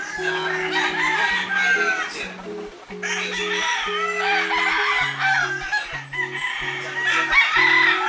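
Many gamecock roosters crowing over one another, with background music of held low notes that change in steps.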